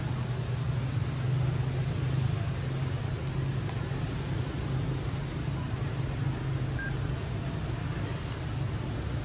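Steady low rumble and hiss of background noise, with a few faint short chirps a little past the middle.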